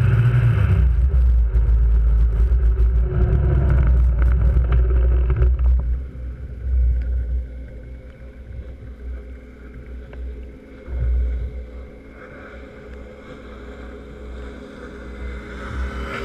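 Snowmobile engine running at speed on the ice, with a heavy low rumble and wind buffeting the camera microphone, loud for about the first six seconds and then much quieter. Near the end a second snowmobile comes up close alongside.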